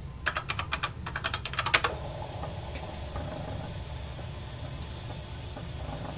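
Typing on a Radio Shack TRS-80 Model I keyboard: a quick run of about a dozen keystrokes over the first two seconds, then a steady low hum.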